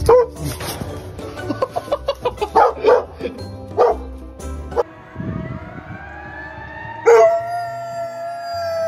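A chocolate Labrador howls. The howl rises in pitch, then holds one long, steady note from about seven seconds in. Earlier come a few short dog barks.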